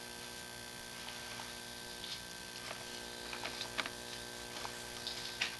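Steady electrical hum, with a few faint ticks scattered through it.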